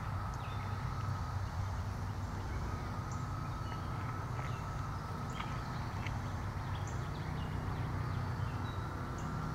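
Outdoor woodland ambience: a steady low rumble with a faint steady high hum and scattered faint short ticks and chirps.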